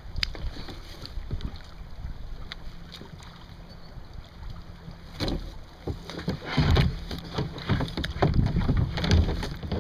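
Irregular knocks, bumps and rustling on a kayak as the catch and gear are handled aboard, getting busier and louder about halfway through, over a low rumble of wind on the microphone.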